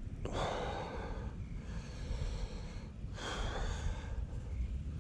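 A person's heavy breathing close to the microphone: two long breaths about three seconds apart, over a steady low rumble.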